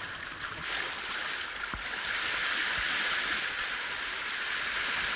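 Steady rush of flowing water, an even hiss that grows louder about two seconds in, with a few faint low knocks.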